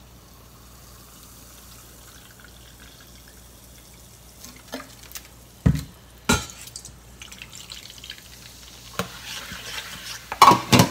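Carbonated soda (Mitsuya Cider) poured and fizzing, faint at first, with two sharp knocks a little past halfway. Then the soda goes into a stainless steel bowl and a metal spoon stirs it, clinking against the bowl near the end.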